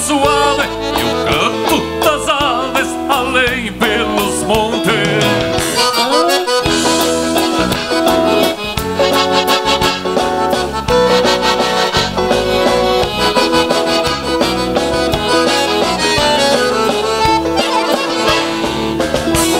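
Live band playing an instrumental passage of gaúcho dance music, led by two accordions over electric guitar, bass guitar and drums, with a steady dance beat.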